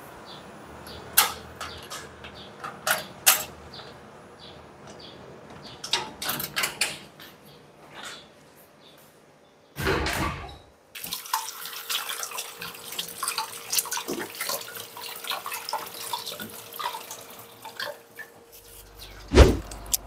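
Knocks and clatter of a plastic laundry basket and a glass-panelled wooden double door being shut and latched, with a loud bump about halfway through. Then water runs with small splashes and clicks, as from a tap.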